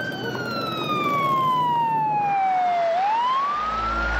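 Police car siren wailing: a slow wail that falls in pitch for about three seconds, then climbs again near the end. A low steady hum joins it shortly before the end.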